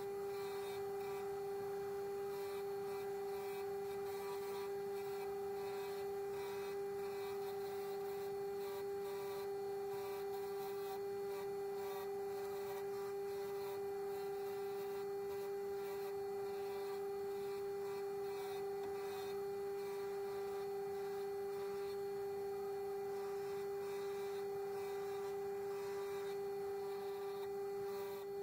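Mac Afric bench grinder running in sped-up footage, its motor heard as one steady high-pitched hum.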